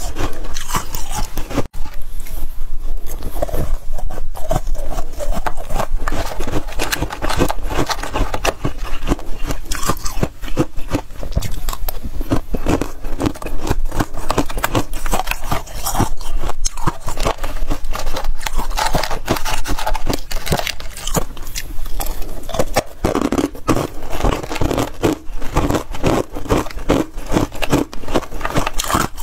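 Close-up crunching of freezer frost being bitten and chewed: a dense, continuous run of crisp crackles and crunches, with some scraping.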